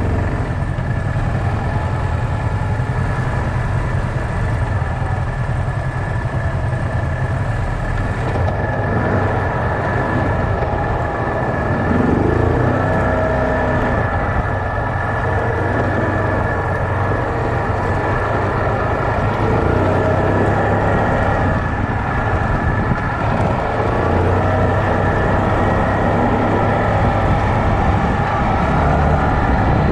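Yamaha Kodiak 450 ATV's single-cylinder engine running as the quad rides along a dirt trail, heard close up from a mount on the machine, with a steady high whine over the engine. The engine gets a little louder about twelve seconds in.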